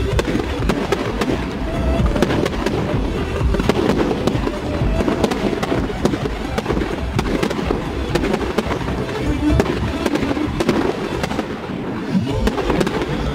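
Fireworks going off in quick succession, a dense run of sharp bangs and crackles, over pop music.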